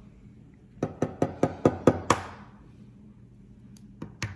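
A chicken egg tapped repeatedly against a wooden tabletop to crack its shell: about seven quick taps a second in, growing louder, the last the sharpest. A few more clicks follow near the end.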